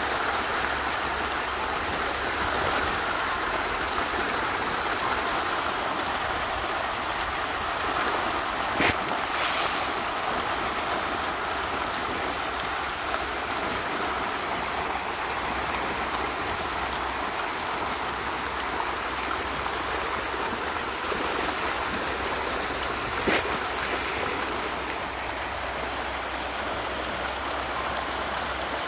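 A large shoal of fish thrashing and splashing at the surface of a pond: a steady, rushing churn of water. Twice a short knock cuts through.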